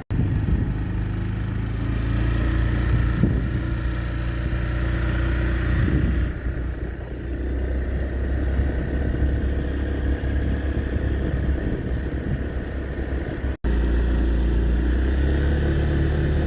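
A road vehicle's engine running steadily, a low hum that cuts out for a moment about thirteen and a half seconds in.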